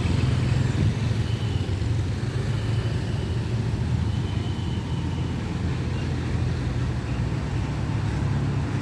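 Steady low drone of bus and other vehicle engines moving past in heavy road traffic.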